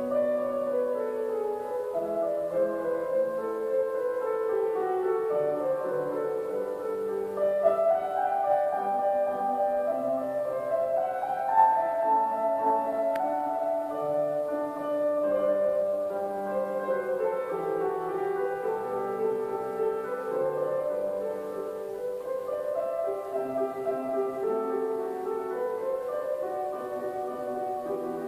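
Grand piano being played in a church, a continuous flow of notes and chords with no break.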